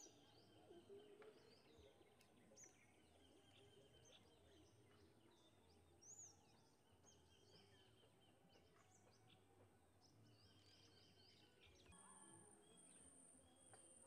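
Faint ambience of several small birds giving short, high chirps and whistles. A thin, high pulsing whine joins about twelve seconds in.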